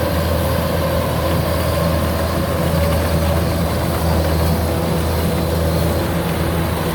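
Kubota DC93 combine harvester running steadily, its diesel engine and threshing machinery making a constant low drone.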